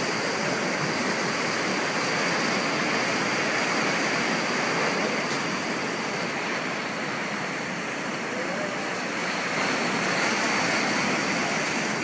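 Ocean surf breaking and washing on a sandy beach, a continuous rushing noise that stays fairly even.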